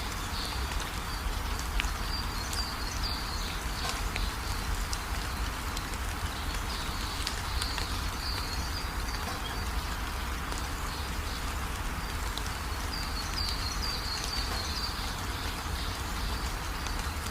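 Steady rain falling, an even hiss with a low rumble underneath. Short high chirps come through now and then, in a few clusters.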